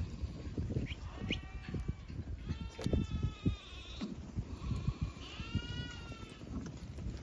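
White Dorper ewes bleating several times in drawn-out, wavering calls. Under them is the steady patter of many hooves trotting on dry dirt.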